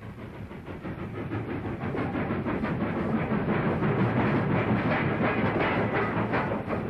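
Steam-hauled passenger train running by: the locomotive's steam and exhaust with a rhythmic clatter of wheels over the rails. It grows louder over the first couple of seconds, then holds steady.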